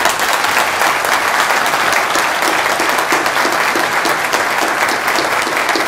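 A large crowd applauding, many hands clapping at once in a dense, steady patter; it breaks out suddenly.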